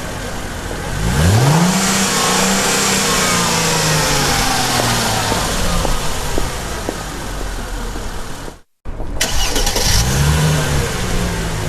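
Small DC toy motor switched on, whining up to speed about a second in, then running steadily with a slight slow drop in pitch. The sound cuts out abruptly, then spins up again.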